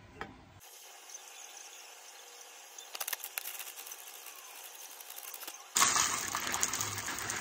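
Dry food pieces poured: a brief light rattle as crispy fried onions are shaken from a box onto a salad, then, near the end, a louder, dense rattle of dry cereal clusters poured from a paper bag into a plastic tub.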